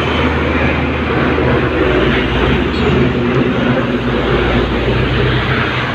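Heavy road traffic: diesel trucks passing close by, a steady low engine drone with tyre and road noise, the low rumble growing heavier about two seconds in.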